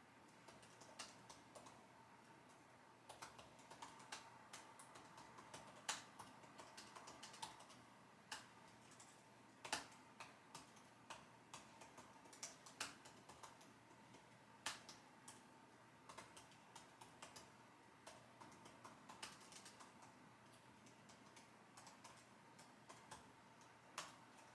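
Typing on a computer keyboard: soft key clicks in irregular runs and pauses, a few keystrokes louder than the rest. A faint steady tone runs underneath.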